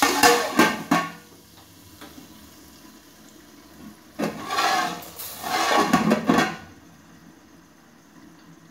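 An aluminium lid clanks down on a cooking pot just after a hot ghee tadka is poured in, and the tadka sizzles under it. There are two loud bursts of sizzling, one with the clanks at the start and a second from about four to six and a half seconds in.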